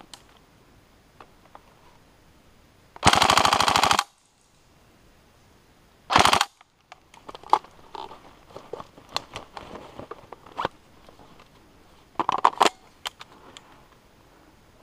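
Airsoft electric rifle firing full-auto: a burst of about a second, a short burst a couple of seconds later, then a half-second burst near the end. Scattered sharp clicks and snaps fall between the bursts.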